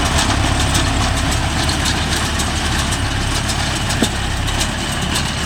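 Mahindra Yuvo Tech Plus 585 tractor's diesel engine idling steadily, with a single short click about four seconds in.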